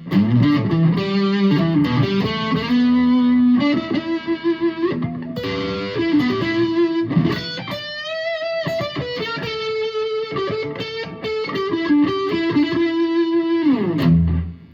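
Tom Anderson Icon Classic electric guitar played on its neck single-coil pickup through a slightly overdriven Blackstar HT5 valve amp: a lead phrase of sustained notes with a string bend about eight seconds in, ending on a slide down the neck.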